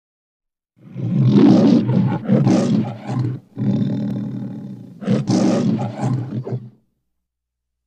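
The MGM studio logo's lion roar: a lion roaring several times over about six seconds, with a short break around the middle.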